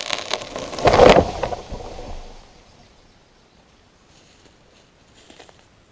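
A felled tree coming down: wood and branches cracking and snapping, then a loud crash as it hits the ground about a second in, followed by a brief rustle of branches settling.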